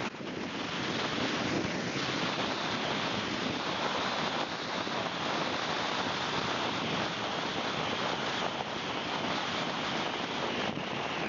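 Steady rushing of wind and tyre noise from a car moving along a wet road, heard from inside the car.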